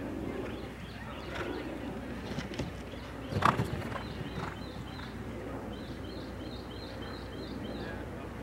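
Open-air ambience with birds chirping, including a quick run of evenly spaced high chirps near the end. A single sharp knock about three and a half seconds in stands out as the loudest sound.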